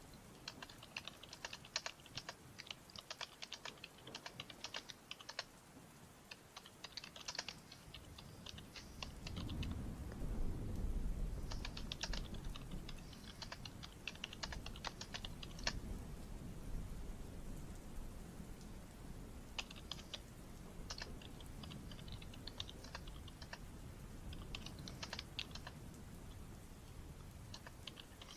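Typing on a computer keyboard: bursts of quick keystrokes separated by pauses. Under it, a low rumble swells about a third of the way in and slowly fades.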